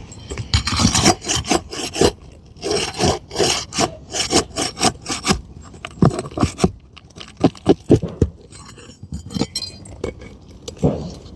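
A hand pry tool scraping and rasping against asphalt roof shingles as it is pushed under a lifted shingle to work roofing nails loose, in quick repeated strokes with sharper single strokes partway through.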